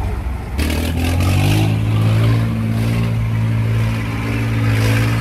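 A heavy off-road truck's engine picks up revs about half a second in, then pulls at steady revs under load as the truck reverses slowly in low range.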